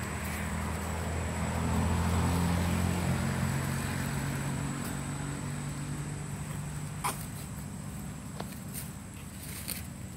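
Low engine hum that swells about two seconds in and fades out by about six seconds, with a couple of faint clicks later on.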